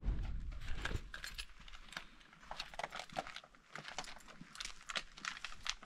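Footsteps crunching on dry forest ground, a sharp crackle roughly every half second, with a low rumble in the first second.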